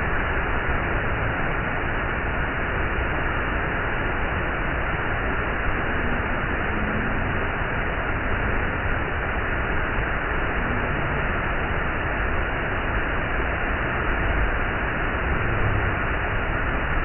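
Waterfall's steady roar of rushing, falling water, an even unbroken noise.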